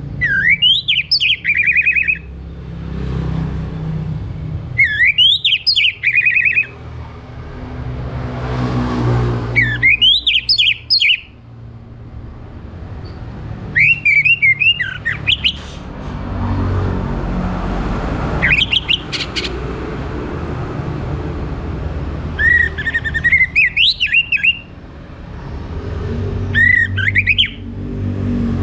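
Orange-headed thrush singing short, loud phrases of quick up-and-down whistled notes, about seven phrases a few seconds apart, over a steady low background rumble.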